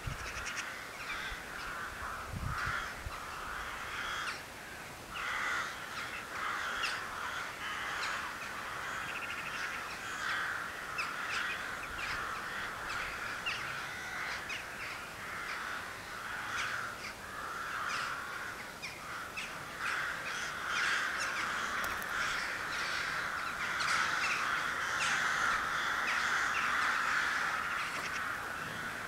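A continuous chorus of many birds calling at once, with dense overlapping calls throughout.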